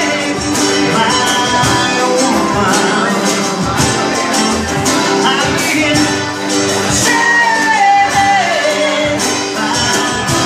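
Acoustic band playing with a steady beat: acoustic and nylon-string guitars, mandolin and hand percussion, with a voice singing over them.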